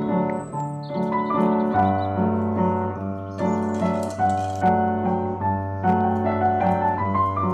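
Background piano music: a melody of sustained notes over a held bass.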